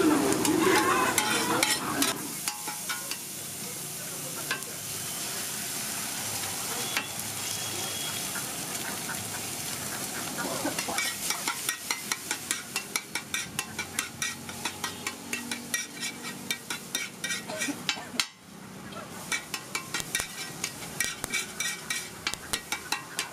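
Eggs frying on a hot iron tawa with a steady sizzle. From about halfway through, a metal spatula scrapes and chops against the tawa in quick repeated strikes, about three a second, as the eggs are mixed into bhurji.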